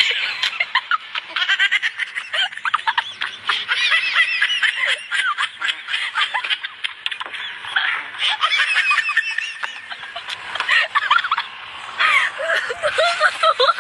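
A person laughing hard in long runs of quick, high-pitched bursts, broken by a few brief lulls.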